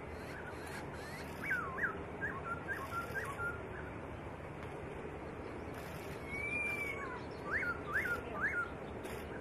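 Black-throated laughingthrush singing: a quick run of short, clear whistled notes, then after a pause one long arching whistle and three sharp up-and-down notes near the end, over a steady background hiss.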